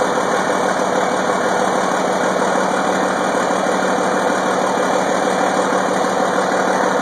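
John Deere 4640 tractor's six-cylinder diesel engine idling steadily.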